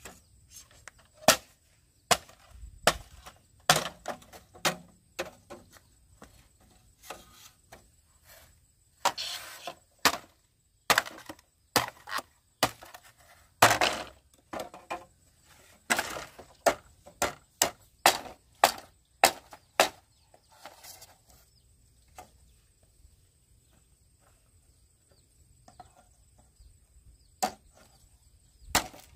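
Machete chopping bamboo poles: sharp woody chops at irregular intervals, many in quick succession through the first twenty seconds, then a lull and a few more strokes near the end.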